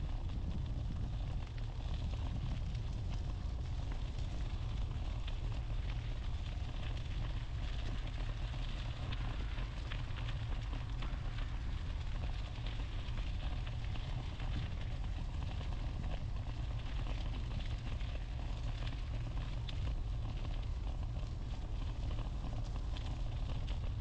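Steady wind noise on the microphone of a moving e-bike, a continuous low rumble with a fine crackling hiss over it.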